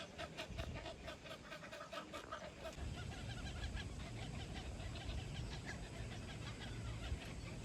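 Birds calling in a rapid chatter of short, repeated notes, thinning out after about three seconds into fainter calls over a low rumble.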